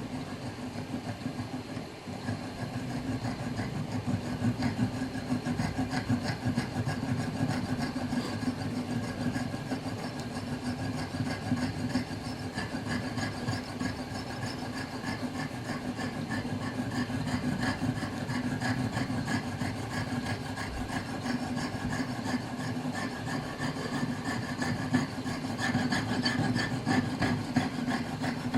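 Piercing saw cutting the damaged teeth out of an antique clock wheel, a fine blade rasping back and forth in quick, even strokes.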